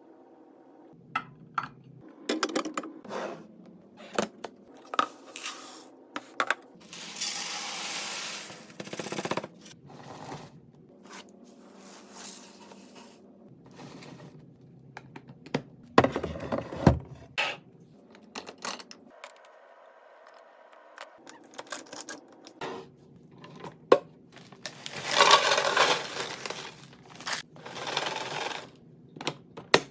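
Containers being handled and set down, with many sharp clicks, taps and clinks and some scraping. Two longer hissing stretches come a few seconds in and near the end.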